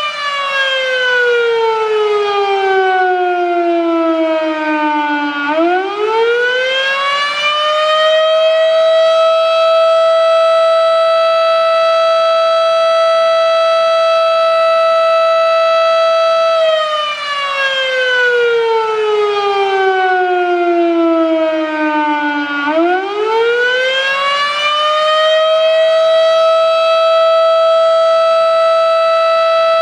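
Federal Signal Model 7 outdoor warning siren sounding the attack signal, very loud. Its steady tone winds down in pitch for about five seconds, then climbs back up and holds, and this fall and rise happens twice.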